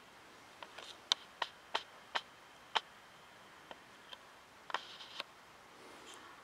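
About a dozen short, sharp clicks or taps at irregular spacing over faint room tone, bunched in the first three seconds and sparser after.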